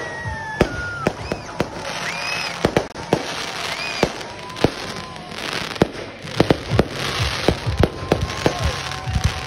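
Aerial fireworks display: a rapid string of sharp bangs from shells bursting overhead, with crackling and hissing from the bursts and a few short gliding tones among them.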